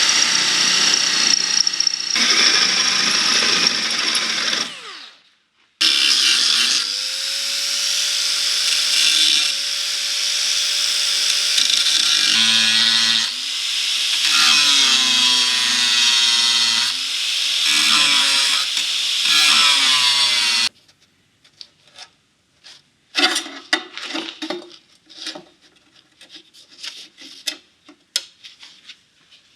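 Handheld power tool working car-body sheet metal, its pitch shifting under load. It spins down about 4 seconds in, starts again a second later and runs until it cuts off near 21 seconds, after which there are light metallic clinks and taps.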